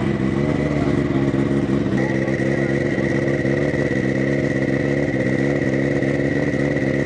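Motorcycle engine idling steadily close by, with a thin high whine over it that grows stronger about two seconds in.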